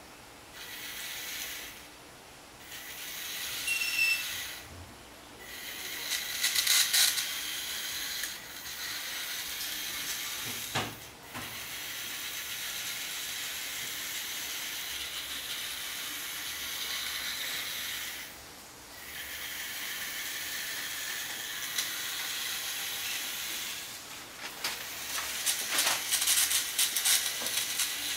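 The small electric drive motors of a homemade remote-controlled robot car whir as it drives about in spurts, starting and stopping several times. Near the end comes a run of rapid rattling clicks.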